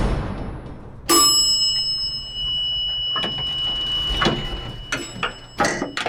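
Elevator chime dinging once about a second in, its high tone ringing on for several seconds. Around it are the fading tail of a heavy slam at the start and a run of sharp mechanical knocks and clanks in the second half.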